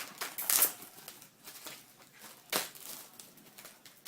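Packaging being handled, crinkling and rustling in short bursts, loudest about half a second in and again about two and a half seconds in.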